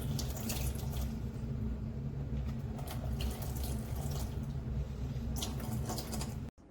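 Water running steadily, as from a tap, swelling in hiss a few times before cutting off abruptly near the end.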